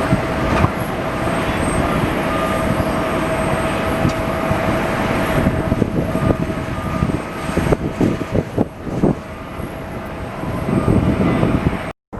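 Jet airliner engines, a loud rumble carrying a steady whine that fades out about seven and a half seconds in, leaving a gusty rumble. The sound breaks off briefly near the end.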